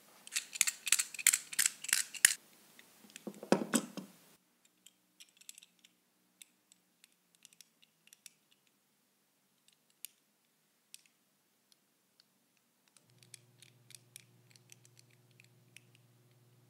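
Metal puzzle padlock being handled and worked: a quick, dense run of sharp metallic clicks and clinks for the first four seconds, then only scattered light ticks.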